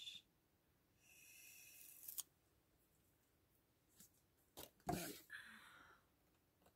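Faint handling sounds of craft materials on a worktable: a soft rustle ending in a small click about two seconds in, then a few light taps and a brief scrape.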